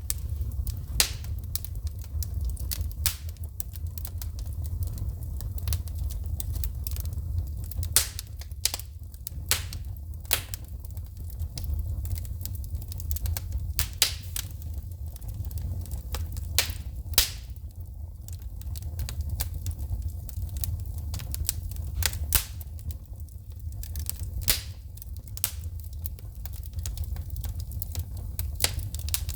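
Wood fire in a fireplace crackling, with sharp pops and snaps of shooting sparks at irregular intervals over a steady low rumble of the flames.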